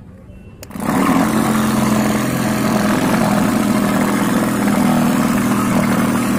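Cardboard model engine switched on with a click about a second in, then running steadily and loudly with an engine-like hum as its flywheel spins.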